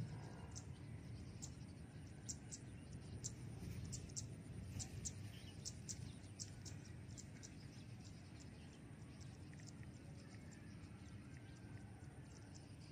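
Faint open-field ambience: a steady low rumble of wind, with short high-pitched chirps scattered irregularly through it.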